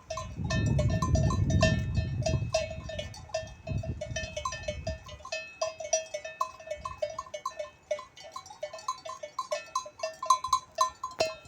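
Many bells on a flock of sheep clanking irregularly and overlapping as the animals move. A low rumble sits under the bells for about the first five seconds, then drops away.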